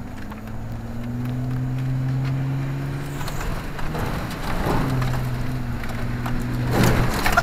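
4x4 truck engine running steadily under throttle as the truck ploughs through a mud puddle, heard from inside the cab. Muddy water sloshes and splashes against the body and windshield about three seconds in, and there is a louder splash near the end.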